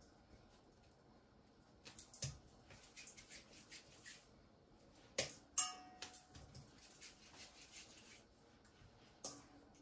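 Quiet kitchen handling sounds as dumpling dough is pinched off and shaped by hand over a stainless steel bowl and a pot: scattered soft taps and a few sharper clicks, one ringing briefly about halfway through.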